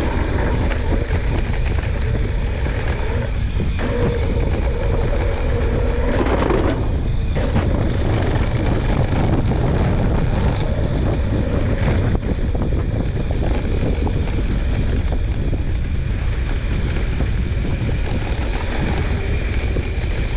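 Steady wind rush on the microphone with the rumble of mountain bike tyres rolling fast over a dirt trail.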